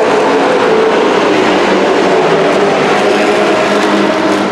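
Several dirt-track racing trucks' engines running hard together as the field laps the oval. A truck passes close near the end.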